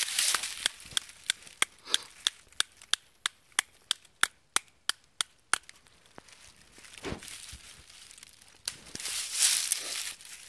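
Small flat steel credit-card axe head, lashed to a stick handle, chopping into a small tree trunk: about eighteen quick, sharp chops, roughly three a second, that stop about five and a half seconds in. Near the end there is a rustle of dry leaves.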